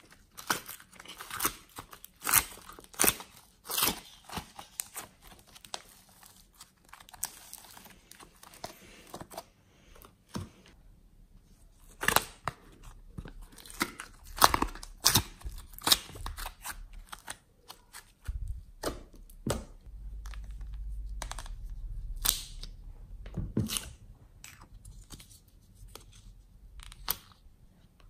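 Soft clay and slime pulled out of plastic trays and handled by hand: sticky tearing and crackling with many sharp snaps and clicks, and a low rumble for a few seconds past the middle.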